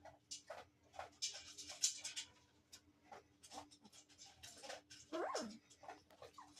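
Doberman puppies moving about with many small scuffling clicks, and one puppy gives a short whine, rising and then falling in pitch, about five seconds in.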